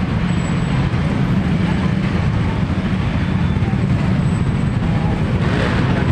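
Busy street ambience: a steady low rumble of city traffic under the murmur of a crowd's voices, with a brief hiss near the end.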